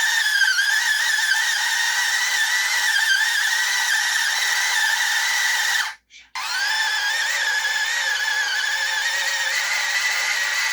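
Mini washing machine's small motor running with a steady whine that wavers slightly in pitch. It stops for a moment about six seconds in, then starts again.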